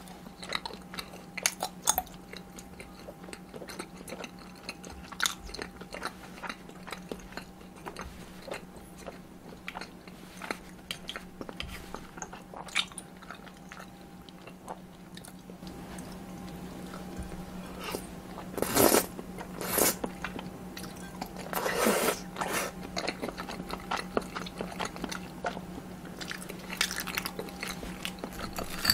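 Close-miked eating of tteokbokki and cheese sticks: steady chewing and biting mouth noises, with two louder bites about two-thirds of the way through, over a faint steady hum.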